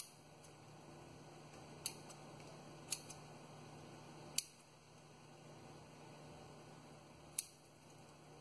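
Five sharp, short clicks spaced a second or more apart, the fourth the loudest, over a faint steady low hum, while a pepper plant's roots are handled and trimmed for bonsai.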